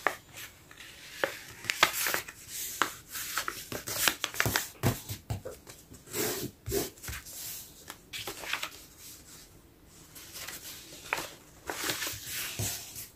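A sheet of paper being folded and creased by hand into a paper airplane: irregular rustles, crinkles and soft taps as fingers press and run along the folds.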